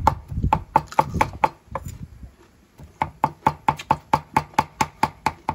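Heavy cleaver mincing raw beef on a thick round wooden chopping block: rapid even chops about four to five a second, each a sharp knock. The chopping pauses for about a second near the middle, then resumes at the same pace.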